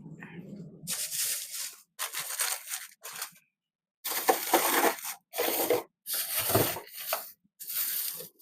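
Repeated bursts of rustling and crinkling, about eight in all, each under a second with short pauses between, from rummaging through kitchen items in search of hot pepper.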